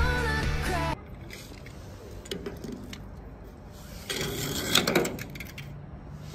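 Music that cuts off about a second in, then light clicking and scraping of small hard objects, with a louder cluster of rattling clicks about four to five seconds in.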